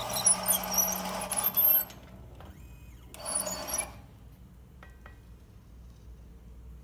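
Let-R-Edge channel letter former feeding and forming 5-inch chrome strip: the machine runs loudly, stops about two seconds in, and runs again briefly a little after three seconds. After that it is much quieter, with a few faint clicks.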